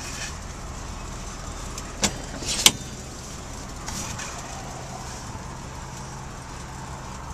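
Engine of a 1956 Dodge Custom Royal Lancer running with a steady low hum, heard from inside the cabin. Two sharp clicks come about two seconds in.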